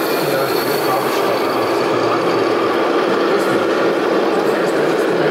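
Steady simulated diesel engine sound from a radio-controlled scale Mercedes-Benz truck's sound module as it drives slowly, mixed with the general din of a busy exhibition hall.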